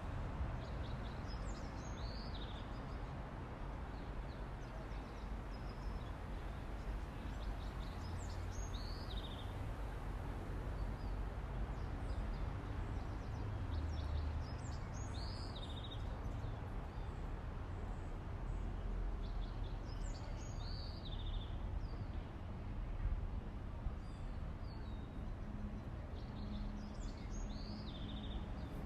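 Daytime city ambience: a steady low rumble of distant traffic, with a bird singing a short high phrase that falls in pitch, repeated about every six seconds.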